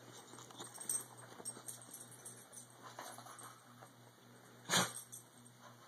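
Pit bull puppy playing with a plastic ball-in-track cat toy: scattered light plastic taps and clicks as it noses and paws at the ring, with one louder sharp sound near the end.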